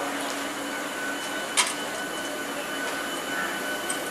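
WAP-7 electric locomotive approaching at low speed: a steady running noise with a faint steady whine. A sharp click stands out about a second and a half in, and a smaller one comes near the end.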